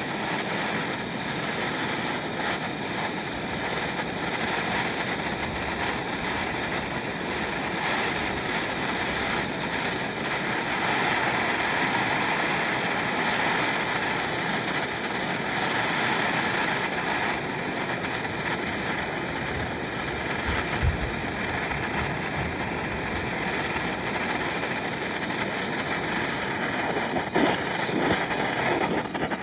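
Gas torch flame running steadily with a continuous hiss as it melts gold in a melting dish, with a brief knock about two-thirds of the way through.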